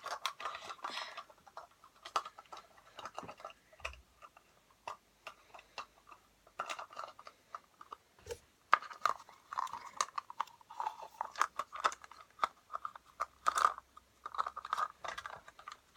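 Small plastic toy pieces being handled and packed into a Kinder Surprise egg's plastic capsule: irregular clicks, taps and rustling, with a few sharper clicks.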